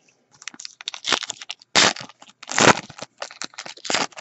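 Foil wrapper of a Bowman Platinum baseball card pack crinkling as it is pulled open by hand: a run of irregular crackles, with two louder ones near the middle.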